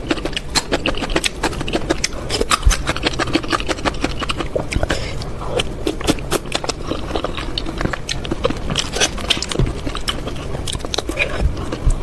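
Close-miked eating of spicy noodle soup: a continuous run of wet slurping, smacking and chewing clicks, without pause.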